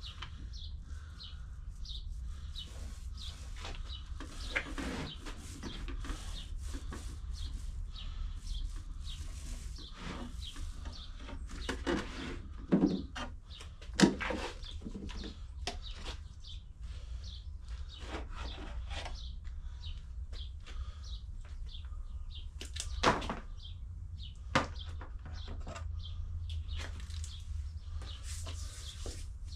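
Scattered light knocks and handling noises from working epoxy over a model boat hull, with four sharper knocks near the middle and later on, over a steady low rumble. Birds chirp faintly in the background.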